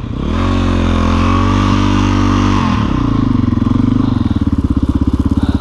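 Single-cylinder four-stroke dirt bike engine (a thumper) revving up and holding steady revs. About two and a half seconds in, the revs drop sharply, and the engine runs on at lower revs with a pulsing, thumping beat.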